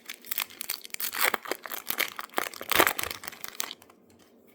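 Foil wrapper of a baseball card pack being torn open and crinkled in the hands, with irregular crackling that peaks twice and stops a little before the end.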